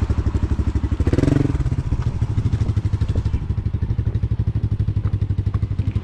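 A motorcycle engine idling close by, with an even, rapid pulse.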